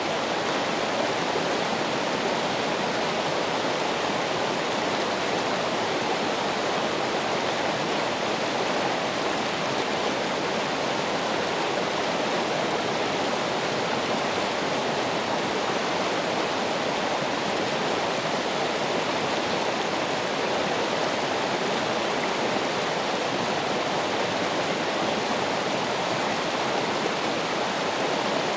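Running water, a steady unbroken rush like a stream or small waterfall.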